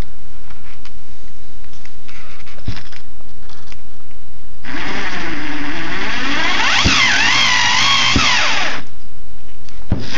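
Small 4-volt cordless motion-sensing screwdriver motor running for about four seconds from around the middle, its whine wavering up and down in pitch as its speed changes, after a few light handling clicks.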